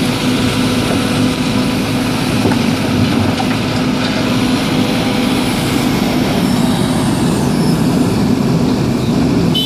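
Diesel engine of a Takeuchi tracked excavator running steadily while its boom and bucket work.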